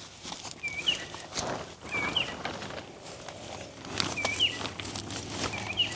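A bird calling over and over: a short, high, hooked call repeated about every second and a half, four times. A few faint clicks and knocks sound between the calls.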